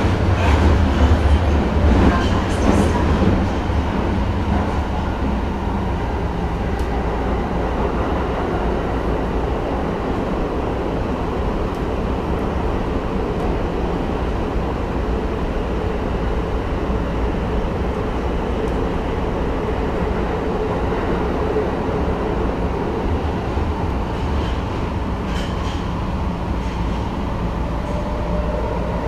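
Tokyo Metro Marunouchi Line 2000 series subway train running at speed, heard from inside the car: a steady rumble of wheels on rail and running gear, with a few sharp clacks in the first seconds. A faint steady motor tone comes in near the end.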